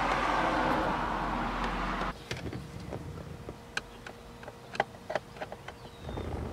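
A steady rushing noise for about the first two seconds that cuts off abruptly, then light scattered clicks and ticks of a screwdriver backing out the screws that hold a 1969 Corvette's center gauge panel.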